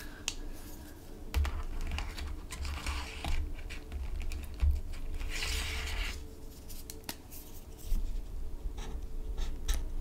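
Plastic clicks and rustles of felt-tip markers being handled, then near the end the scratchy strokes of a marker tip colouring a small swatch on paper.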